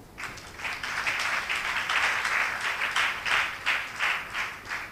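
Audience applauding, building up just after the start and thinning out near the end.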